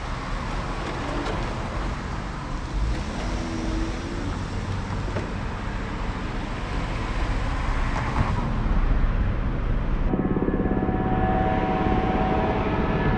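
Steady outdoor street noise with a low rumble; about ten seconds in, the sound changes abruptly to a steady motor hum with several pitched tones.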